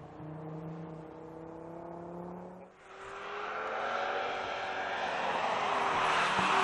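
Audi RS3's turbocharged 2.5-litre five-cylinder engine accelerating, its note rising in pitch. Near the middle there is a brief dip in the sound, then it pulls louder and fuller, with rising road noise towards the end.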